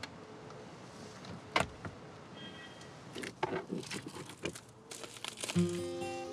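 Small clicks and rustles of a pistol being handled and reached into a car's glove compartment: one sharp click, then a short cluster of clicks and knocks. Soft music comes in near the end.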